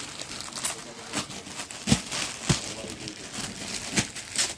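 Crinkling and rustling of packaging and cloth as unstitched suit pieces are handled and unfolded, with a handful of sharper crackles at irregular moments.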